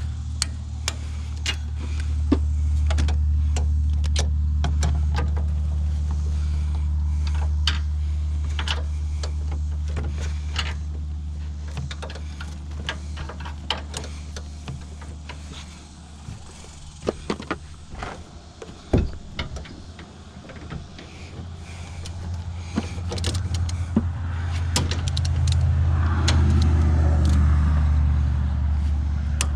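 Ratchet and torque-wrench clicks, scattered and irregular, as the strut's upper mounting nuts are tightened to torque, over a steady low drone that swells and fades.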